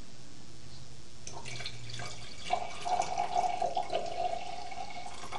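Red wine pouring from a glass decanter into a wine glass: liquid trickling and splashing from about two and a half seconds in, with a steady ringing tone as the glass fills.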